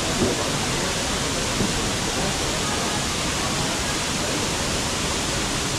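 Waterfall pouring down a rock face into a shallow pool: a steady, even rushing noise.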